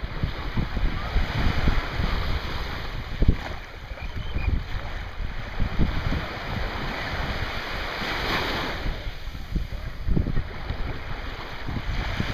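Small waves lapping and washing up onto a sandy shore, with gusty wind buffeting the microphone; one wave washes in more strongly about eight seconds in.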